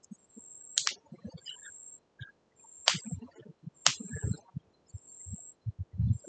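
Irregular low thumps of air from an oscillating electric fan buffeting the microphone. Three sharp clicks come through: about a second in, near three seconds, and near four seconds.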